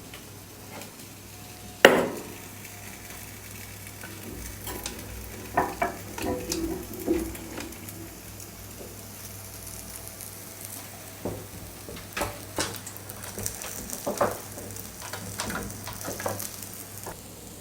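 Freshly grilled paneer tikka being handled after a microwave grill cycle: a sharp click about two seconds in, then scattered light clinks and knocks of the dish and utensils over a faint sizzle.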